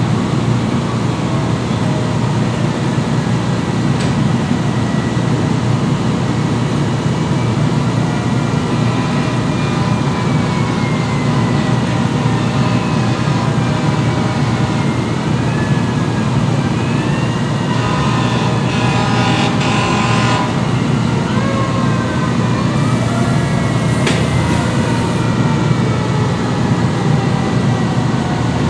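Fire trucks' diesel engines running on scene with a steady loud low rumble. Faint siren wails rise and fall in pitch through the middle, and a hiss lasting about two seconds comes in around eighteen seconds in.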